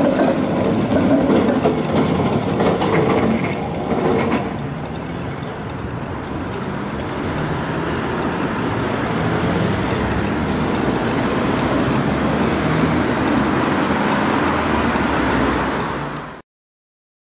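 Trams rumbling over the junction's tracks for the first few seconds, then steady road traffic with cars driving by. The sound cuts off abruptly near the end.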